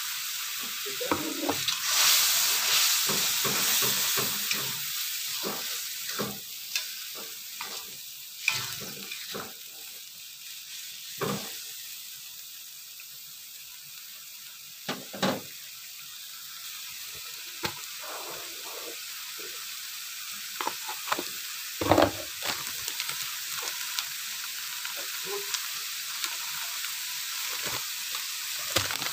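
Blended spice paste with green chillies and green tomato sizzling as it fries in a wok, stirred with a spatula that scrapes and knocks against the pan many times. The sizzle is loudest in the first few seconds, just after the fresh ingredients go in.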